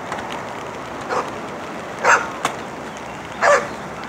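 A dog barking three times: one softer bark about a second in, then two loud, sharp barks about a second and a half apart.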